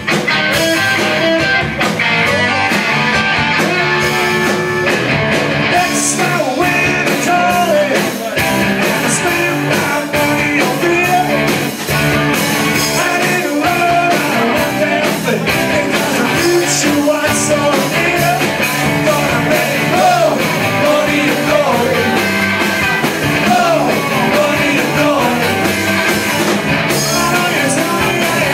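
A rock band playing live and loud: amplified electric guitars and a drum kit, with a sung vocal.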